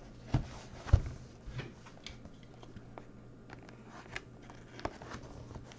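Cardboard trading-card hobby box being handled and opened: a few sharp knocks and taps, the loudest about a second in, then lighter ticks, over a steady low hum.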